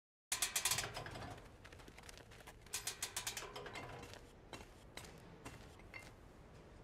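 Light clicking: a quick rattle of sharp clicks at the start and again about three seconds in, then a few single clicks about half a second apart.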